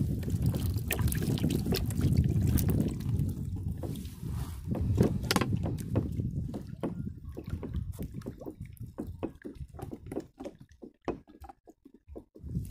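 Water sloshing in a plastic bait bucket of small bait fish as it is handled, then a run of scattered drips and small ticks that thin out and fade toward the end.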